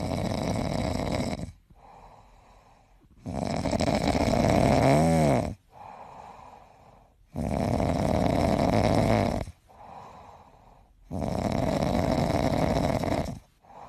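A sleeping cat snoring: four long snores about every three and a half to four seconds, with quieter breaths between them. The second snore ends in a short wavering whistle.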